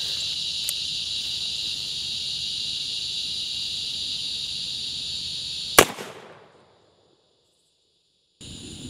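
Steady chirring of crickets, then a single shot from a Pietta 1858 Remington .44 black powder revolver about six seconds in, ringing off. The sound then cuts out completely for over a second before the insects come back near the end.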